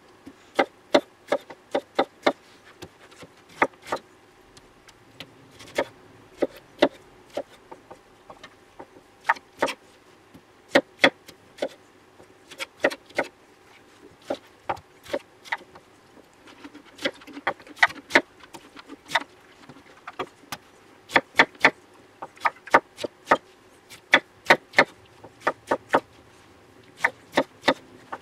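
Large kitchen knife chopping fresh pineapple into chunks on a wooden cutting board: sharp knocks of the blade striking the board, irregular and often in quick pairs or short runs.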